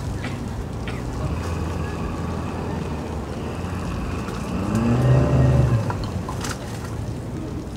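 Engine idling with a steady low hum; about four and a half seconds in it revs briefly, the pitch rising and falling back over about a second, then settles again. A sharp click follows shortly after.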